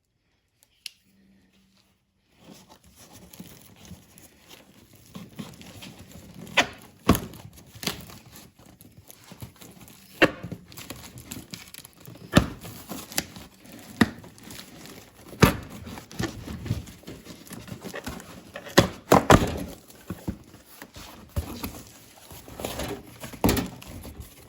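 Unpacking a shipping box of parts by hand: packaging rustles and crinkles, and parts and the box give scattered knocks and clicks. It starts after about two seconds of near quiet.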